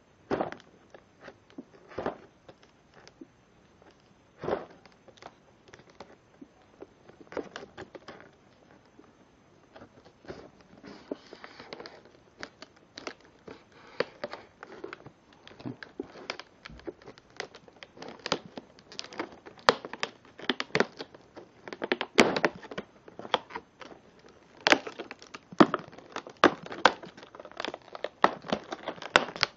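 Stiff clear plastic clamshell packaging crackling and clicking as gloved hands grip and pry at it. The crackles come irregularly, sparse at first and growing busier and louder from about halfway through.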